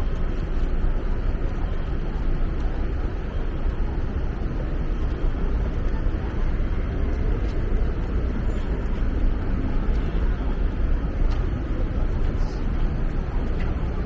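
City street ambience: a steady low rumble of traffic with a faint murmur of voices.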